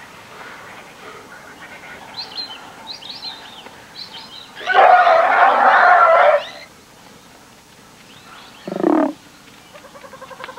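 Young African elephant calf screaming for about two seconds under attack by lions, followed by a shorter, lower call.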